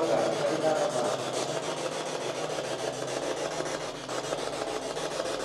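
Steady rasping static-like hiss, with a few brief faint pitched fragments in the first second that the investigators take for a child's voice.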